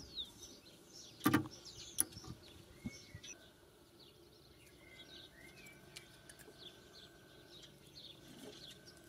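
SUNKKO 737G pulse spot welder firing a two-pulse weld, set at 70 %, of a 0.15 mm strip onto a lithium cell. A single sharp snap comes about a second in, followed by a lighter click. Birds chirp faintly in the background.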